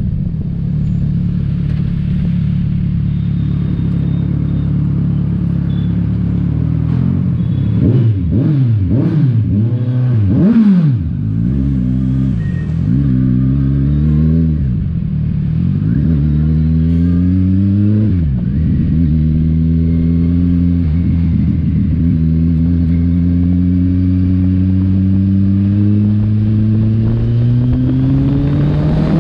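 Kawasaki Ninja 1000's inline-four engine on the move. It holds a steady note at first, then is revved up and down in several quick blips. Next comes a few climbs in pitch, each broken by a drop as it shifts gear, and it finishes with a long steady cruise whose pitch slowly rises.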